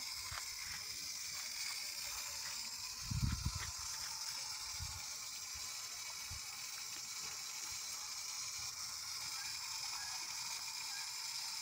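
Steady high hiss of outdoor background noise, with a brief low rumble about three seconds in.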